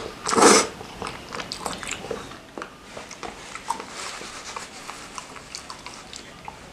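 A person eating spicy noodle soup: a short, loud slurp about half a second in, then quieter chewing with many small wet mouth clicks.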